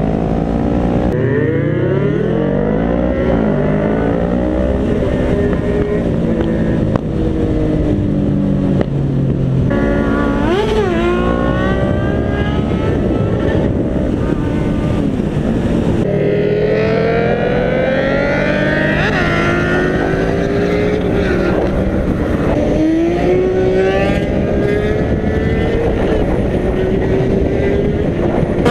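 Sport motorcycle engines revving and accelerating through the gears, their pitch rising and dropping again and again. The sound changes abruptly about 1, 10 and 16 seconds in, as if switching to another bike.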